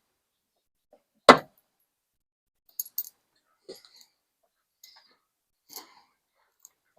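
A sharp click as the fuel filler door's replacement spring clip snaps into place on a Mk3 Toyota Supra, followed by a few faint clicks and small rattles of the parts being handled.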